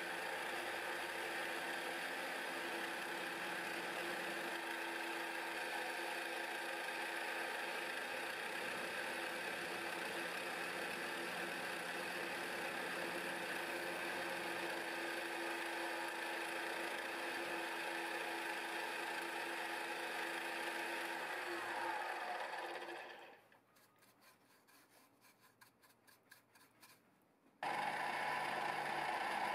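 Milling machine running with an end mill cutting the edge of a thin aluminium sheet part, a steady mechanical whir with cutting noise. About 22 s in the sound dies away to near quiet with faint regular ticking, then the machine sound comes back suddenly near the end.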